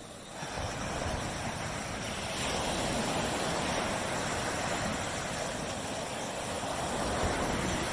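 Waves breaking on a beach: a wash of surf swells up about half a second in, stays full through the middle and eases off near the end as the water draws back.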